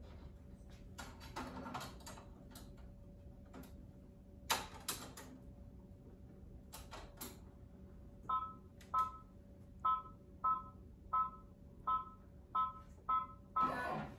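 Clicks and light knocks of handling at a multi-needle embroidery machine, then about nine short two-tone electronic beeps roughly two-thirds of a second apart, from the machine's touchscreen panel as buttons are pressed.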